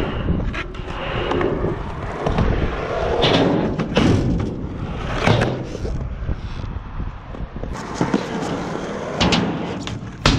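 Skateboard wheels rolling over concrete with a steady rumble, broken by several sharp clacks and thuds of the board's tail popping and the wheels landing.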